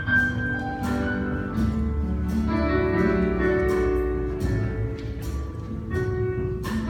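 Live church band playing the instrumental introduction to a gospel song: sustained keyboard chords over a steady beat of cymbal strokes.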